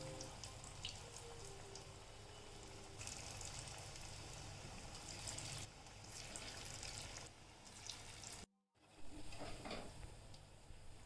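Battered lettuce-leaf pakoras frying in hot oil, a steady crackling sizzle with many small pops. It breaks off for a moment about eight seconds in.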